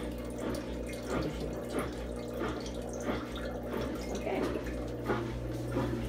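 Built-in drain pump of a KUPPET twin-tub portable washing machine running with a steady hum, pumping drain water out of its hose into a toilet bowl with a continuous splashing trickle.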